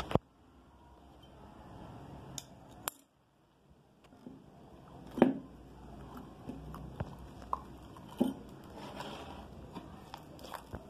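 Slime being handled: soft crackly squishing as it is scooped out of a glass goblet and worked by hand, with a few sharp knocks of a plastic spoon and the glass on the table, the loudest about five seconds in. A brief gap of near silence comes about three seconds in.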